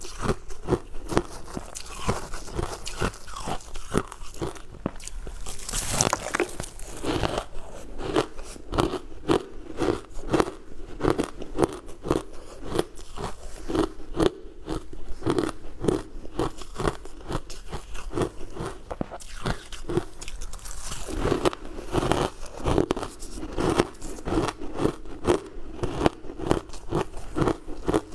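Refrozen ice chunks coated in matcha powder being bitten and chewed: a continuous, irregular crunching and crackling, with one sharper, louder crunch about six seconds in.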